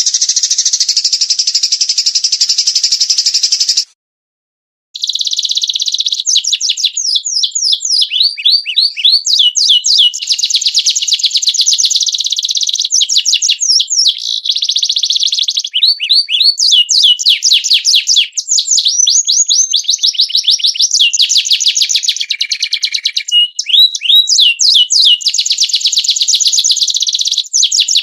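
A songbird singing a loud, rapid, high chattering song of fast trills and quick rising and falling sweeps, with a break of about a second near the start. It is a masteran recording, bird song played to teach kept songbirds.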